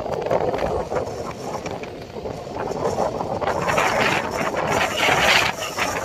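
Rattling engines of outrigger fishing boats running in through the surf, mixed with the wash of breaking waves. A broader rush of noise swells about four seconds in.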